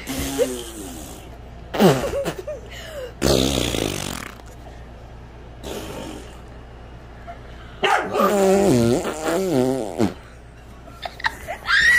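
A series of fart noises: short ones about a second apart early on, then a longer, wavering one about eight seconds in.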